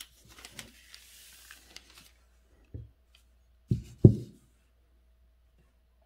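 Handling noises at a calligraphy desk: a faint rustle with small clicks for about two seconds, then three dull knocks, the last two close together and the loudest.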